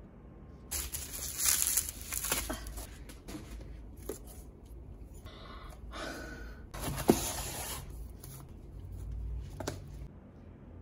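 Packaging rustling and tearing as shrink-wrapped paperback manga volumes are handled and lifted out of a cardboard box. It comes in several bursts, with a sharp knock about two-thirds of the way in.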